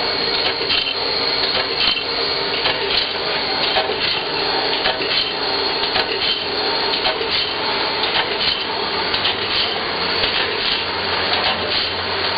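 Automatic bandsaw blade sharpener running, its grinding wheel working along the blade with a steady grinding noise and repeated sharp clicks as the mechanism works tooth by tooth.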